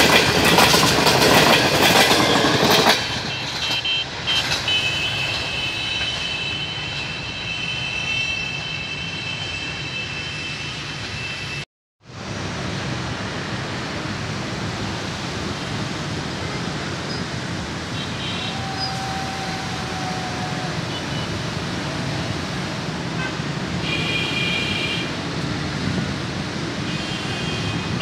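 Passenger coaches of a train rolling past close by, wheels clattering over the rails; the loud rush drops away about three seconds in as the last coach clears. It is followed by a quieter steady background hum of road traffic.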